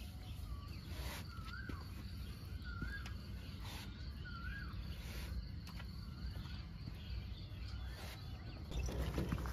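A bird repeating a short rising-and-falling whistled call several times over a steady low background hum, with a few faint clicks.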